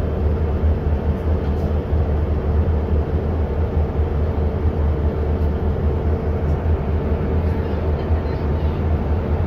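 Steady engine drone of a passenger boat heard inside its cabin: a constant low rumble with a steady hum above it.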